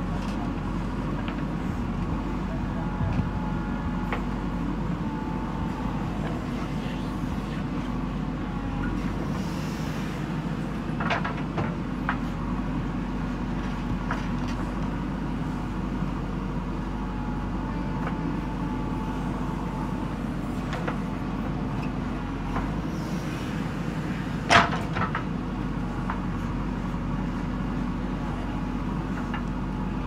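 JCB 3DX backhoe loader's diesel engine running steadily under load as the backhoe arm digs soil. A few sharp knocks cut through, the loudest about 25 seconds in.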